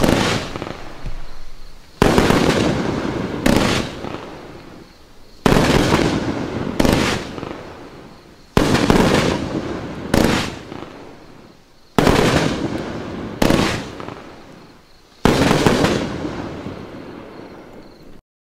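A 20-shot consumer firework cake firing blue mines and gold brocade shells. About ten sharp reports come every one and a half to two seconds, each followed by a long fading crackle before the next shot. The sound cuts off abruptly near the end.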